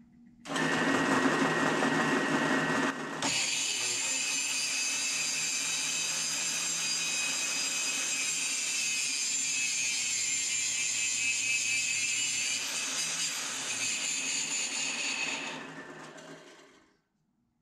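Drill press and an angle grinder clamped to its table running together, grinding a spinning steel bolt down into a bushing. One motor starts, a higher whine joins about three seconds in, and both run steadily before winding down near the end.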